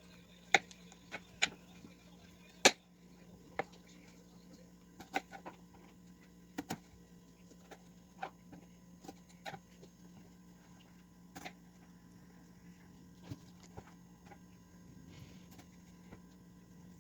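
A knife cutting strawberries into quarters, the blade knocking sharply and irregularly against the cutting surface, with a faint steady hum underneath.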